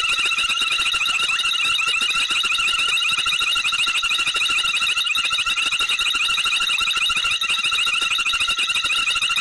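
Steady night chorus of calling animals: a continuous, fast, high-pitched trill at several pitches, with no pause.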